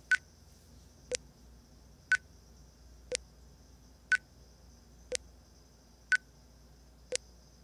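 Short sync-test beeps, one brief blip every second, eight in all, from an NTSC audio/video sync test pattern played through Razer Hammerhead true wireless earbuds in gaming mode; the beeps are timed against the picture to show the Bluetooth audio latency.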